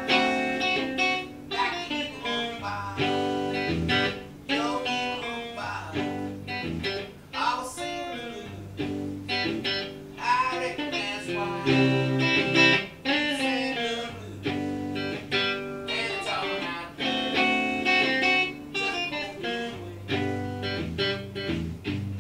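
Solo electric guitar playing a blues-style instrumental passage, mixing strummed chords with single-note lines and several string bends.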